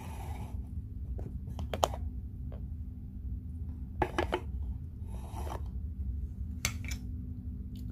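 Metal fork clicking and scraping against a plate in a few short, separate strokes, the sharpest about two seconds in, over a steady low hum.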